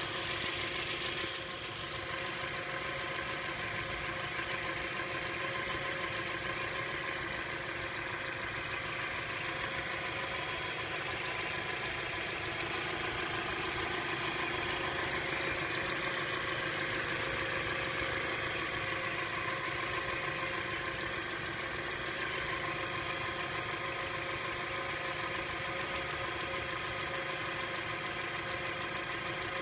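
Toyota ZRR70W Voxy's 2.0-litre four-cylinder engine running steadily with an abnormal noise, a rattling together with a squealing whine.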